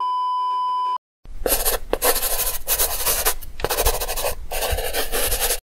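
Intro sound effects: a steady test-tone beep lasting about a second, then after a short gap several seconds of scratchy, rasping rubbing like a pencil sketching, which stops abruptly.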